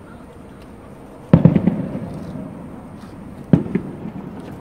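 Aerial firework shells exploding: two sharp booms about two seconds apart. The first comes about a second in and is followed by a few smaller cracks and a fading rumble.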